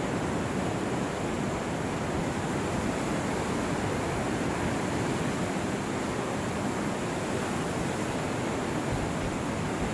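A muddy mountain river in flood, its turbulent water rushing past in a steady, unbroken wash of noise.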